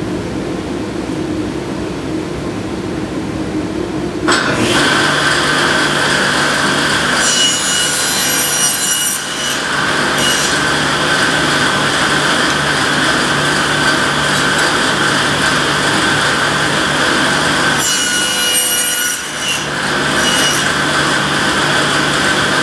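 Table saw starting up about four seconds in and running, its blade cutting tenon cheeks on a wooden stretcher held in a tenoning jig: two cuts, one about a third of the way in and another near the end.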